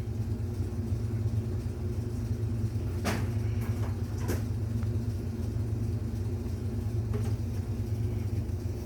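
A steady low mechanical hum in the background, with a few brief clicks of handling about three, four and seven seconds in.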